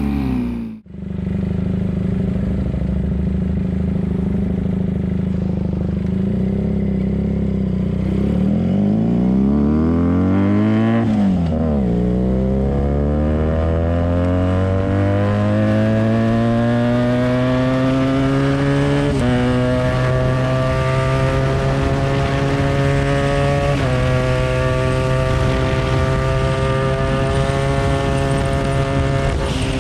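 Benelli 302R parallel-twin engine through a straight U-pipe and SC Project carbon slip-on exhaust. It opens with a falling note as the bike passes, which cuts off under a second in. The engine then holds a steady note for several seconds, revs down and up as it pulls away, and accelerates with rising pitch, with two upshifts in the second half.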